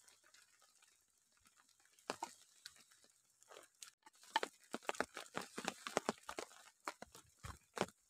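Pestle pounding and grinding chili sauce in a clay mortar: a few sharp knocks about two seconds in, then a quick run of repeated knocks and crunching from about halfway through.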